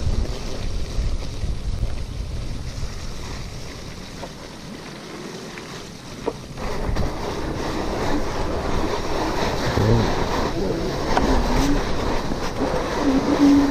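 Wind buffeting the microphone of a chest-mounted camera on a moving electric bicycle, a steady low rumble with tyre and road noise. It eases off for a couple of seconds in the middle and then picks up again. A few short wavering tones sound near the end.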